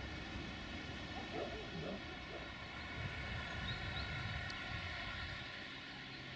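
Steady, distant mechanical drone from an engine over a low rumble, with a few faint wavering calls in the first half.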